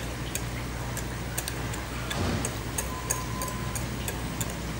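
Steady low hum of a kitchen, with scattered faint clicks and a soft splat about two seconds in, as thick cornbread batter is poured from a ceramic bowl into a foil pan.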